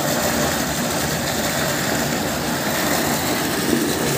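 Water gushing from a tubewell's outlet pipe and splashing into a pool, a steady rush over the even drone of the pump engine running.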